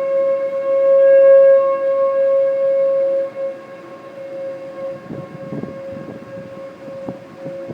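Outdoor tornado warning siren sounding a steady-pitched wail, the alert for a tornado warning. It is loudest at first, then drops away sharply about three seconds in and carries on fainter, with some low rumbling noise in the second half.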